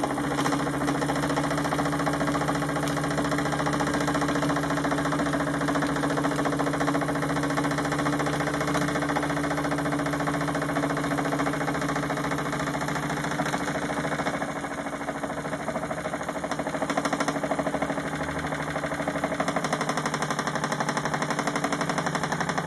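Wilesco D16 model steam engine running steadily, a rapid even chuffing and clatter from its cylinder and flywheel over a steady low hum. It turns slowly on a very low gas flame, not yet fast enough to drive its belt-driven generator well.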